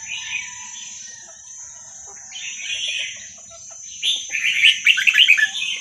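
Red-whiskered bulbul singing in three bursts of chirping, the last and loudest a run of quick falling notes near the end.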